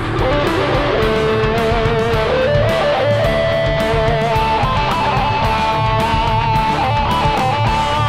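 Background rock music: an electric guitar plays a melody with bent notes over a steady beat.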